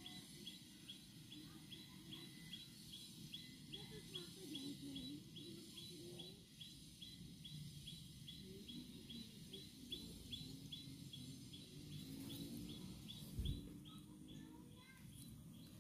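Quiet outdoor ambience: a small creature repeats a short, high chirp about three times a second, evenly, over faint low background noise. A single dull bump comes about 13 seconds in.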